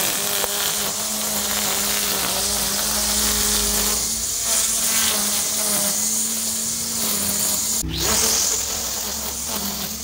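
Battery-powered string trimmer running steadily, its electric motor giving a held whine as the line cuts through long grass. The sound changes abruptly about eight seconds in.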